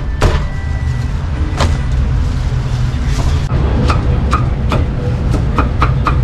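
Cleaver chopping roast meat on a wooden chopping block: two single chops in the first two seconds, then a quicker run of about three chops a second from about four seconds in. A steady low rumble of background street noise runs underneath.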